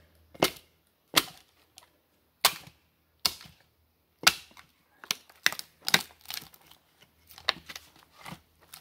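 Hatchet chopping into a split firewood round to cut the stringy wood fibres still holding the two halves together: a series of sharp, irregular chops, several in quick succession a little past the middle.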